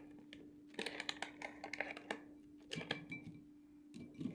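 Small clicks and crinkling rustles from food packaging and dishes being handled, most likely the spice sachet being opened and added to the noodles. A steady low hum runs underneath.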